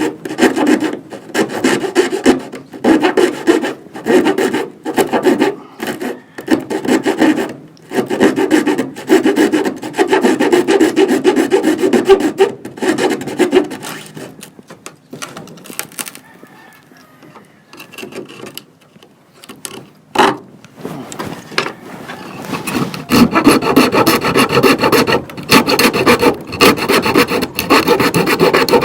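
Hand tool working wood with repeated back-and-forth strokes, like a hand saw cutting through a board. The strokes stop a little before halfway, a single knock follows, and they start again, quicker, toward the end.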